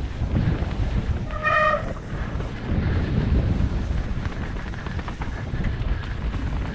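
Mountain bike rolling down a dirt forest singletrack: steady rumble of tyres over the ground and the bike rattling, with wind on the camera microphone. A brief pitched squeal comes about a second and a half in.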